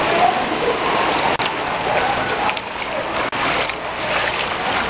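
Floodwater running over a street, a steady rushing noise.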